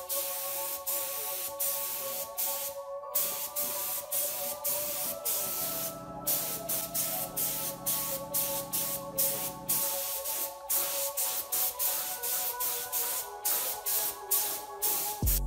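Gravity-feed air spray gun hissing as paint is sprayed, under background music with a steady beat.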